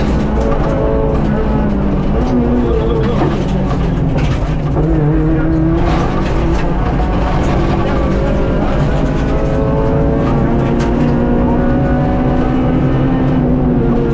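Honda Civic Type R FN2 rally car's four-cylinder engine heard from inside the cabin under hard driving, its pitch climbing and dropping as it accelerates and shifts, with a low rumble of road and tyre noise and music playing over it.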